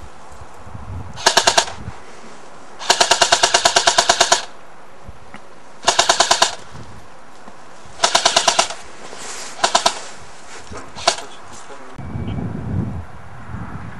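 Airsoft automatic electric guns firing in short full-auto bursts of rapid, evenly spaced shots. About three seconds in comes the longest burst, about a second and a half, and a single shot follows the other bursts near the end. A lower, muffled rumble comes about a second after that.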